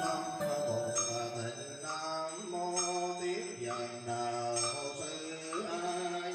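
Buddhist monks chanting a sutra in long, held notes that slide from one pitch to the next, amplified through a microphone.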